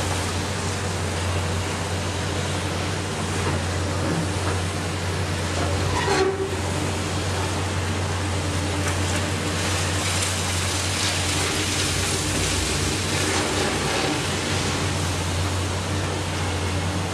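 Heavy hydraulic excavators working on demolition: a steady diesel engine drone with the noise of the work over it, and a brief falling screech about six seconds in.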